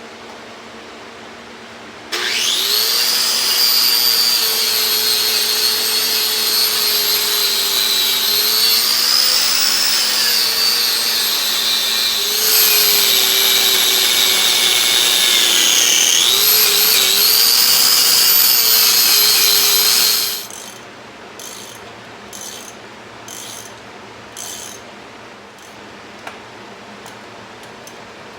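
Handheld electric power tool running with a high whine whose pitch sags and recovers as it is pressed into work. It starts about two seconds in and stops after about eighteen seconds, followed by a few light clicks.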